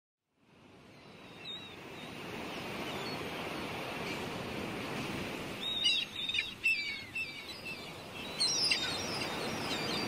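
Sea surf washing steadily, fading in over the first couple of seconds, with birds calling from about six seconds in: short chirping cries that drop in pitch, in two clusters.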